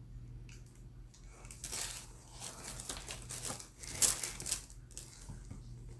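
Shoe-box packaging crinkling and rustling as it is handled, in a run of bursts that is loudest about four seconds in.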